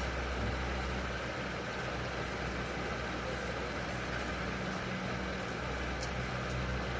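A steady mechanical hum with a constant hiss that does not change.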